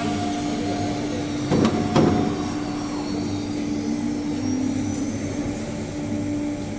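5-axis CNC router running while trimming carbon-fibre composite, a steady machine hum with two sharp knocks about one and a half to two seconds in and a faint rising whine a little later.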